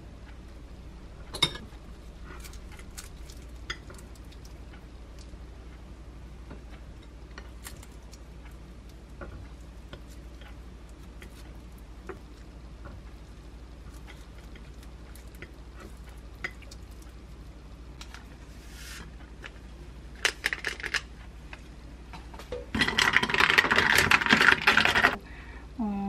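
Soft clicks and taps of metal tongs and fingers on a plate while food is assembled, then near the end a loud rattle of ice cubes clinking in a glass as an iced drink is stirred with a straw.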